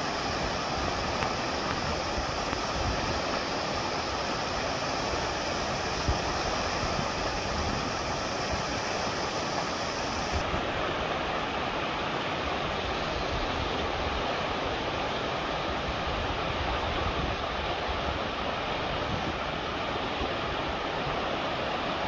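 Steady rushing of a mountain stream, with an uneven low rumble underneath.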